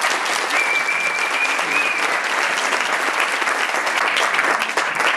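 An audience applauding: many hands clapping together in a dense, steady burst. A short high tone sounds over it for about a second and a half.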